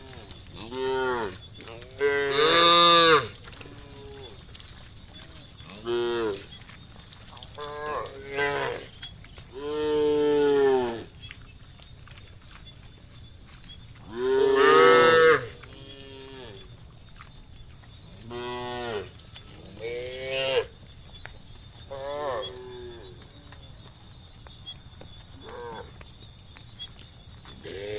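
Several cows mooing in turn: about a dozen calls of varied pitch and length, each rising and then falling, the loudest and longest about three seconds in, around ten seconds and around fifteen seconds in. A steady high-pitched hiss runs underneath.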